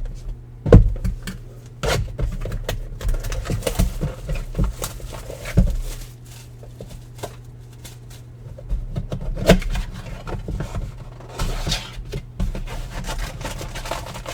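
Baseball trading cards being handled and sorted on a table: irregular light taps, clicks and sliding scrapes, with a brief swishing rustle about eleven seconds in, over a steady low hum.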